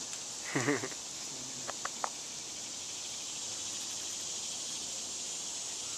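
Steady high-pitched chorus of insects in summer woods, with three short ticks about two seconds in.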